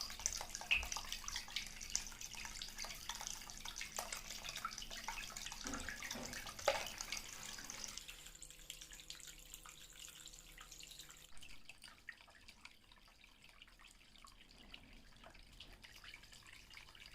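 Water trickling and dripping in a small homemade decorative fountain, with many small drips. About halfway through it becomes quieter, leaving a faint steady hum.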